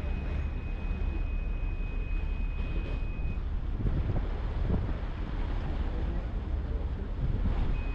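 Harbour ferry engine running with a steady low rumble, wind buffeting the microphone, and a thin high steady tone for the first three seconds or so and again briefly near the end.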